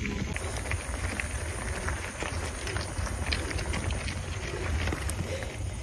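Mountain bike rolling over a dirt trail, with wind rumbling on the microphone and a steady scatter of small clicks and rattles from the bike.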